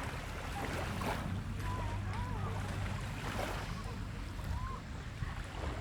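Seashore ambience: a steady wash of surf and wind, with a low hum and a few faint wavering calls in the distance.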